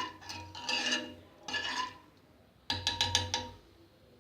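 Spoon stirring kadha in a pot, clinking and scraping against its sides in about four short bouts, with a faint ring after the knocks.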